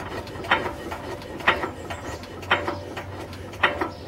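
1908 Sta-Rite 4.5 horsepower stationary gas engine running very slowly, with a sharp exhaust bark about once a second, each followed by a lighter click.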